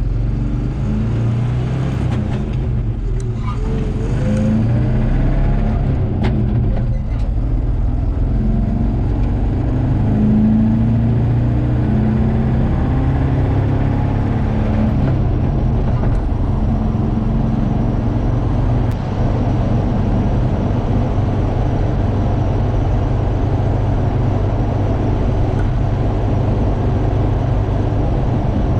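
Chevrolet K30 Squarebody pickup's engine running as the truck is driven. It rises in pitch as it picks up speed in the first few seconds, then runs at a steady cruise, with the new alternator charging the weak battery.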